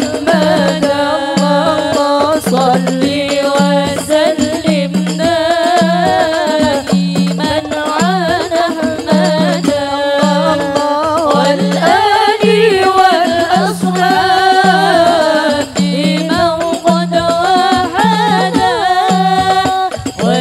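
Women singing sholawat, devotional songs in praise of the Prophet, amplified through microphones. A solo female voice carries a wavering, ornamented melody over a steady percussion beat about twice a second.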